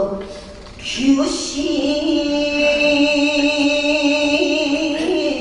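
Shigin chanting accompanying a sword dance: after a brief drop near the start, a voice takes up long, drawn-out notes about a second in, held steady with slow steps in pitch.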